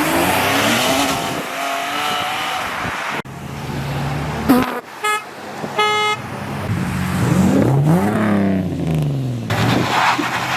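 Car engines revving up and down as cars pull away, with a car horn tooting twice, briefly, about five and six seconds in.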